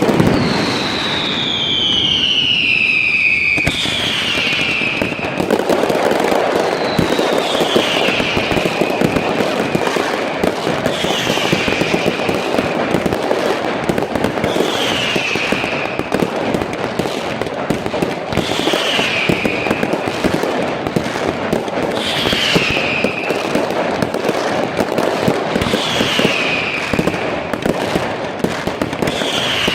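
Fireworks display: dense, continuous crackling and popping of bursting shells, with a short falling whistle repeating about every three and a half seconds.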